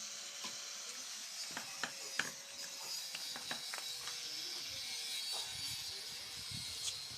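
Scattered sharp clicks and knocks of hand-pump parts and tools being handled and fitted, thickest about a second and a half to three and a half seconds in, over a steady faint hiss.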